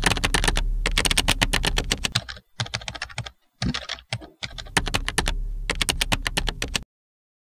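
Typing sound effect: a rapid run of keystroke clicks, with short breaks about two and a half, three and a half and four seconds in. It stops about seven seconds in.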